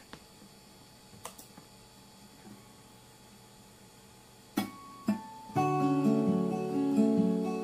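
Near silence with a few faint clicks, then about four and a half seconds in an acoustic guitar comes in: two strummed chords half a second apart, then a ringing run of chords and notes. This is the opening of the song's guitar accompaniment.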